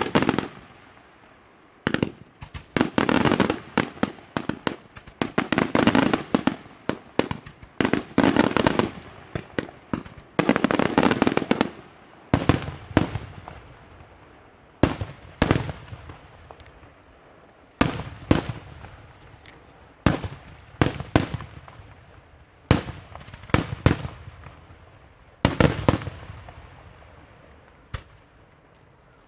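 Daytime fireworks display: dense volleys of loud aerial shell bangs with echoes for the first dozen seconds, then single and paired bangs every second or two, thinning out near the end.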